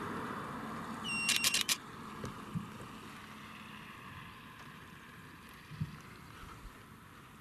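Wind blowing across the microphone, a steady rush that eases off gradually. About a second and a half in comes a quick cluster of four or five sharp clicks.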